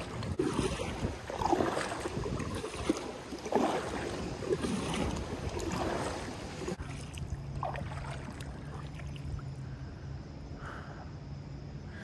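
Kayak paddle strokes swishing through choppy water, about one a second, with wind buffeting the microphone. The strokes stop about seven seconds in, leaving water lapping against the hull, wind and a faint steady low hum.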